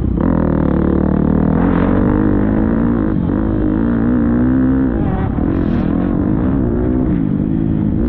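Motocross bike engine running hard, its revs rising and falling repeatedly with a sharp drop about five seconds in.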